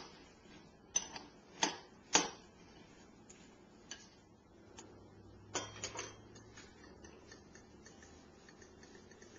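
A metal spoon clinking against a glass bowl while stirring buttered pumpkin seeds: irregular sharp clinks, the loudest in the first few seconds, with a quick cluster around the middle.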